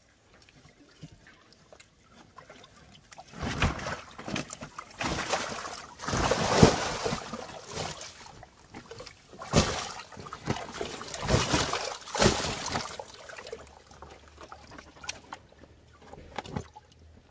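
A large fish thrashing in a tarp-lined water tank, splashing and sloshing the water in loud irregular bursts that start about three seconds in and die down near the end.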